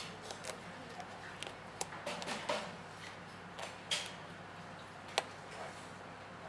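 Metal spoon and fork clicking and scraping against a plate of fried mantis shrimp and fried garlic: a scatter of small irregular clinks, with a cluster about two seconds in and the sharpest click about five seconds in.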